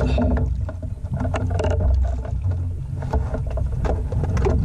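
Steady low rumble on board a small outrigger fishing boat, with scattered knocks and clicks.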